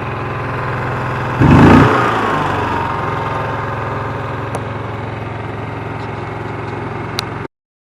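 Engine of a Shindaiwa EGW151MS soundproofed generator-welder running steadily. About a second and a half in there is a brief loud surge, after which the engine's pitch eases down and holds steady. The sound cuts off abruptly near the end.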